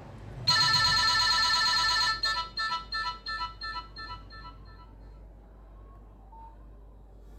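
A Nokia 3595 ringtone played through a Nokia 3120 classic phone's loudspeaker. It starts about half a second in with a quick, repeating run of high notes for about a second and a half, then a string of short notes, about four a second, that grow fainter and stop about five seconds in.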